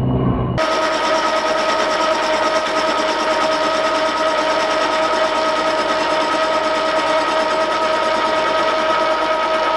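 Milling machine with an end mill cutting the edge of a gunmetal casting: a steady machining noise with several steady whining tones, starting abruptly about half a second in.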